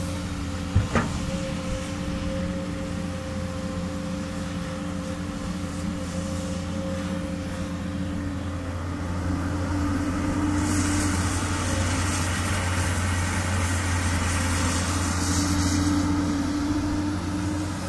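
Komatsu PC200 hydraulic excavator's diesel engine running steadily, with two sharp knocks about a second in. From about halfway through it grows louder, with a hiss on top, and eases off near the end.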